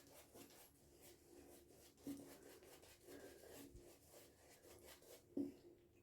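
Faint rubbing and soft crackle of a wet silvertip badger shaving brush working soap lather over the face, with slightly louder strokes about two seconds and five and a half seconds in.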